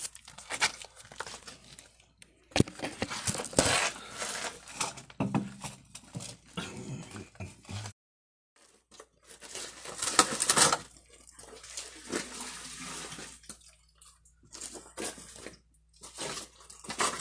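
Irregular scuffing, crunching and knocking of someone moving about on loose dirt and rubble and handling things, with a short break to silence about eight seconds in.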